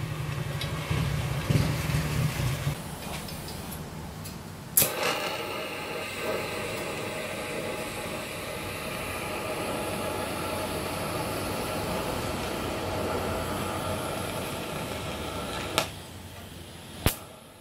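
TIG welding on a steel exhaust pipe: about five seconds in the arc strikes with a sharp click and then buzzes and hisses steadily until it cuts off with a click about three quarters of the way through. Before the arc there is a low hum with a few knocks, and another click comes near the end.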